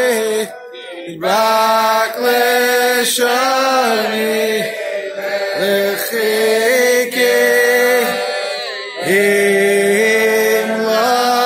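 A large group of men singing a slow melody together in unison, holding long notes that step up and down in pitch, with a brief pause for breath about half a second in.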